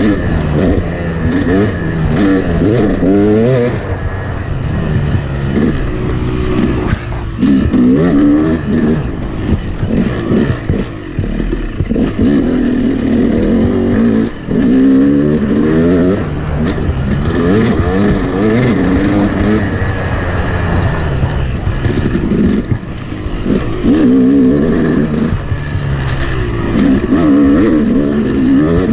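Single-cylinder two-stroke Yamaha 250 dirt bike engine, loud and continuous under hard riding, its pitch repeatedly rising and falling back with the throttle every few seconds, with a brief dip about halfway through.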